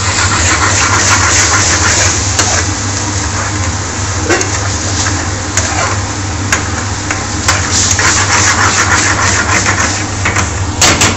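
Chicken curry sauce sizzling in an aluminium frying pan over a gas flame as a ladle stirs it, in rushes of crackle that come and go, with a few sharp knocks of the ladle on the pan. Under it runs a steady low hum.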